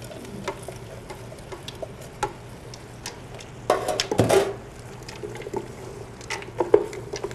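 Corn tipped from a steel pan into a metal stockpot of chunky vegetables, then stirred with a wooden spoon: soft knocks and scrapes of the spoon against the pot, with a louder clatter about four seconds in.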